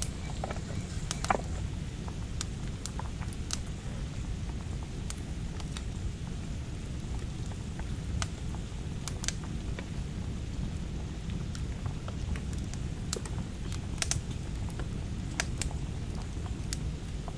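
Rain pattering on plastic sheeting: a steady low rumble with irregular sharp drop ticks, one or two a second.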